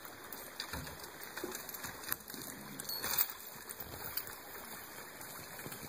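A team of draft horses skidding a log over bare dirt: steady scraping and rustling, with a few sharp knocks about two and three seconds in.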